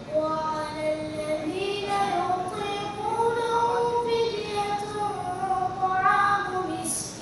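A boy's voice chanting a long melodic line into a microphone, with drawn-out held notes that rise about a second and a half in and fall back near the end.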